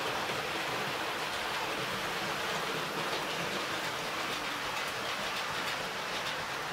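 Hornby OO-gauge model steam locomotive and coaches running along the track: a steady rolling hiss with faint ticking from the wheels as the train passes.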